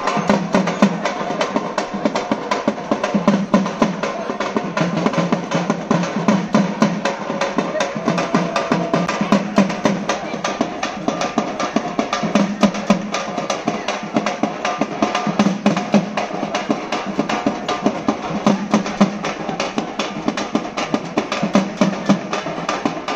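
Parai frame drums beaten with sticks in a fast, continuous rhythm of sharp, closely packed strokes.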